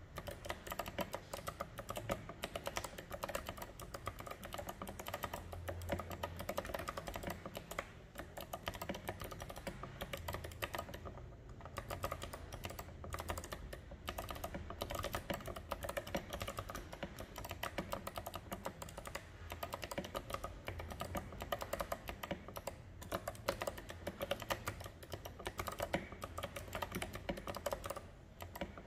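Fast continuous typing on a mechanical keyboard with Kailh Box White clicky switches and tall SA-profile keycaps: a dense run of sharp clicks with brief pauses about eleven seconds in and near the end.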